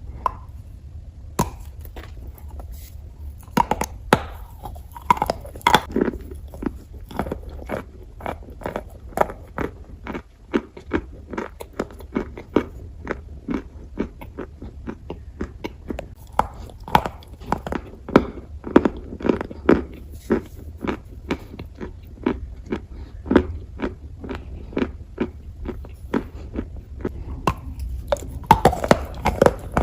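Close-miked crunching and chewing of dry clay: many sharp, irregular crackling crunches, some in quick clusters, over a steady low hum.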